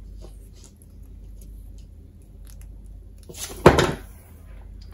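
Soft handling noise of insulated wire being wound by hand around a short plastic pipe coil former, with one sharp knock about three and a half seconds in.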